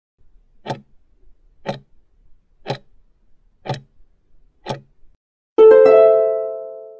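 Countdown timer ticking once a second, five ticks, then a single multi-tone chime that rings out and fades. The chime is the exam's signal sound before each listening.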